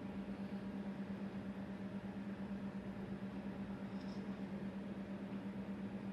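Steady low hum, like a small motor or fan running, holding one pitch throughout.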